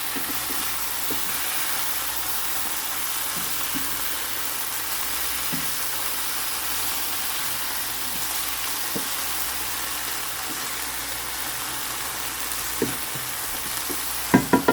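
Chicken pieces sizzling steadily as they fry in a pot, with a few light utensil clicks and a couple of louder knocks near the end.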